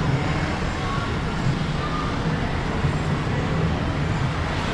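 Street traffic ambience: motorcycle and car engines running steadily on the road alongside, with faint voices in the background.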